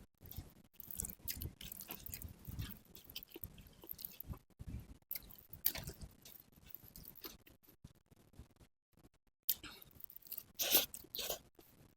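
Close-miked chewing and crunching of food, with irregular wet smacks and clicks and a louder run of crunches near the end.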